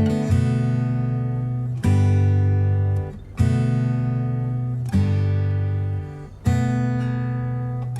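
Background music: acoustic guitar strumming chords, each chord struck and left to ring for about a second and a half.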